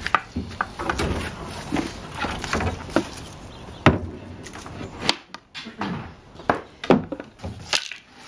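A wooden tool handle knocking and scraping against the rim of a plastic wheelie bin: a string of irregular knocks, the loudest about four seconds in.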